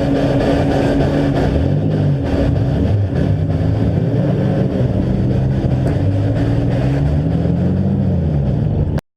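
Several demolition derby engines revving and falling back unevenly, their pitches overlapping, with scattered knocks and clatter. The sound cuts off abruptly near the end.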